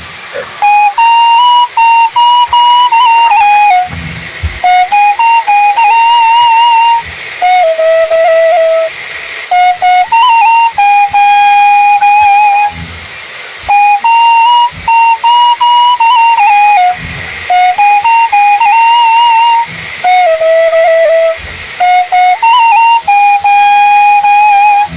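Background music: a flute- or whistle-like melody moving in stepped notes and repeating its phrase, over a steady hiss, with a low thud every few seconds.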